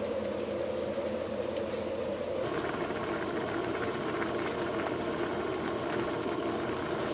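Gas camping stove burner running steadily under a pot of instant ramen noodles at a rolling boil. The sound shifts about two and a half seconds in.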